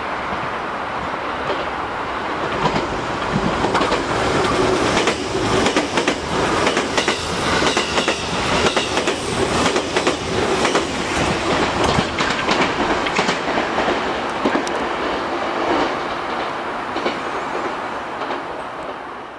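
A JR Kyushu 787-series electric express train passing through a small station at speed. Its rumble builds as it approaches, then a long run of wheel clicks over the rail joints goes by with the cars, easing off near the end.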